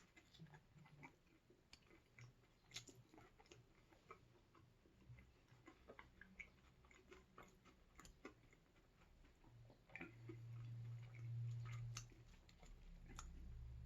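A person chewing food close to the microphone: soft, wet mouth clicks and crunches scattered irregularly. A low hum swells briefly about ten seconds in.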